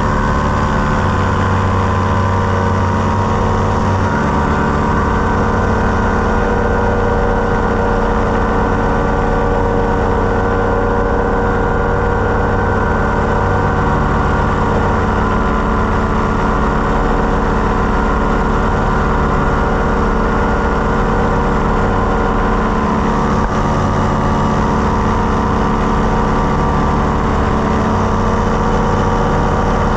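Paramotor trike's engine and propeller running steadily in flight.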